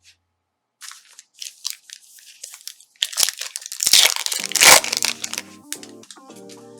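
Plastic trading-card pack wrapper being torn open and crinkled by hand: scattered small crackles, then a louder stretch of crinkling and tearing. Soft background music comes in a little past halfway.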